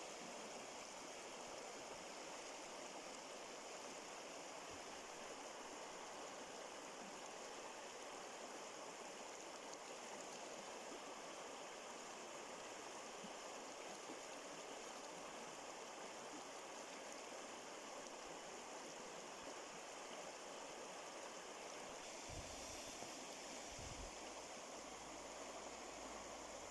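Steady rush of running water, a stream flowing, with a few brief low bumps near the end.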